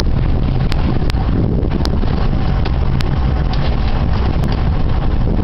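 Performance boat under way at speed, heard from on board: a steady low engine rumble buried in heavy wind noise on the microphone, with about five short sharp clicks.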